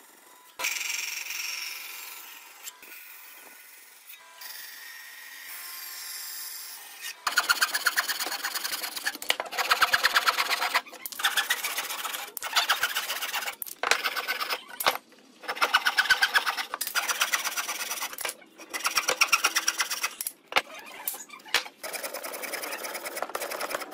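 Frame saw cutting a wooden block by hand: a loud, fast, rhythmic rasp of the teeth through the wood in runs of one to two seconds with brief breaks, starting about seven seconds in. Before that, only faint light scraping.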